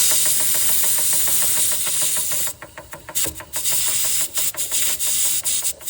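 Steam hissing loudly from the safety valve of a Bing toy steam engine's boiler, lifted to let pressure out. After about two and a half seconds the hiss breaks into short spurts, with the engine's quick, even exhaust beats underneath.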